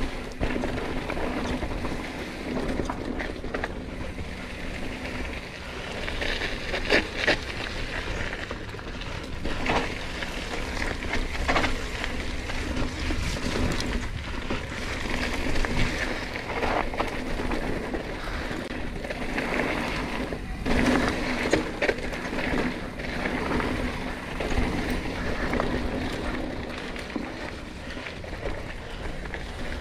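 Yeti SB100 full-suspension mountain bike riding a dirt trail: wind rushing over the helmet- or bike-mounted camera's microphone and tyres rolling over dirt, with frequent sharp knocks and rattles from the bike over bumps.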